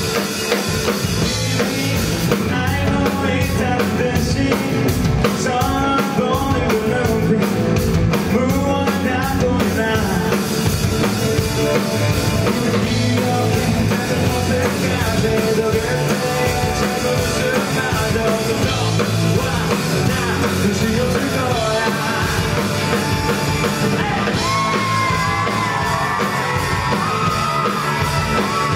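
A live rock band playing a song: drum kit and electric bass under a sung lead vocal.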